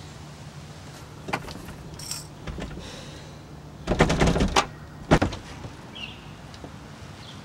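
A front door's metal thumb-latch handle pressed and rattled, with a quick cluster of clicks and clatter about four seconds in and one sharp clack about a second later; the door is locked and does not open.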